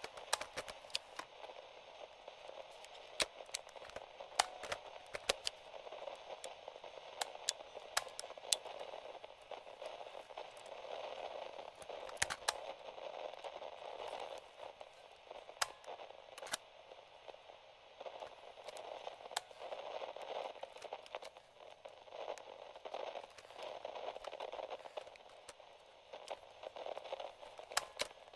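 Light radio static from a vintage portable AM/FM radio: a band of hiss that rises and falls in strength, with frequent sharp crackling pops throughout.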